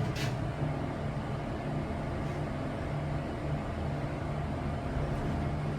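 Steady low hum of a hydraulic elevator's machinery, with a short click right at the start.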